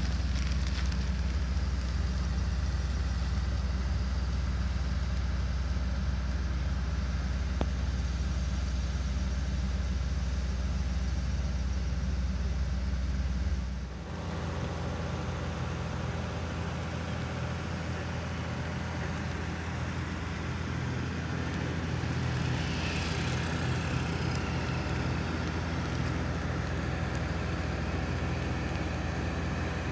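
An engine running steadily at low, even revs, with an abrupt change in the sound about halfway through.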